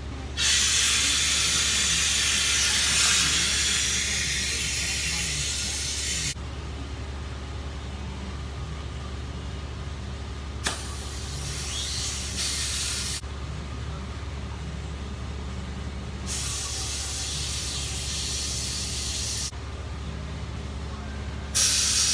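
Compressed air hissing in long bursts from an air-hose chuck into a small ATV/kart tire, with air escaping past the unseated, leaking bead. Three bursts of several seconds each, the first and longest about six seconds, a sharp click opening the second, and a fourth starting near the end, over a steady low hum.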